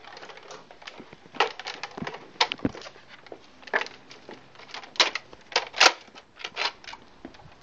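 Handling noise: irregular sharp clicks and knocks, roughly one a second, as plastic toy blasters are carried and handled. The loudest is a single sharp click near the end.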